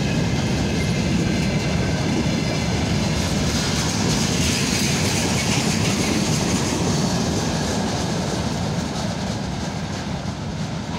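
Freight train wagons rolling past close by: a steady, dense rumble of wheels on the rails, with a higher hiss swelling in the middle and the sound easing slightly near the end.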